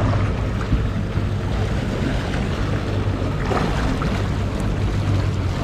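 Motor boat under way: the engine hums steadily beneath wind and water rushing past the hull.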